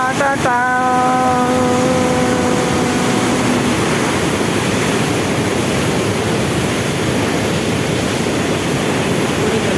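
Floodwater rushing steadily over the road, a loud, even roar. At the very start a brief pitched tone sounds and fades away over about three seconds.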